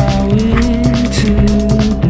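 Music with a steady beat and sustained pitched notes.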